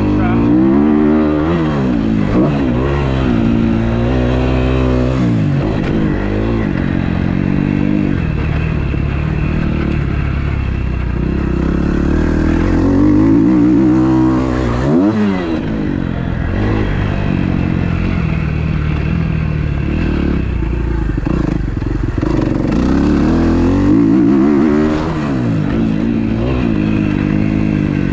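2012 Kawasaki KX250F's single-cylinder four-stroke engine being ridden hard, its pitch climbing and falling over and over with throttle and gear changes, with sharp drops about 5, 15 and 25 seconds in.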